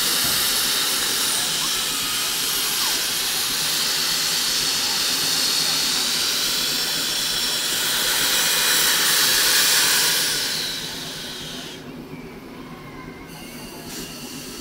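Denver & Rio Grande Western 340, a 2-8-0 narrow-gauge steam locomotive, hissing loudly as steam blows from its open cylinder cocks while it eases forward. The hiss dies away a little after ten seconds in.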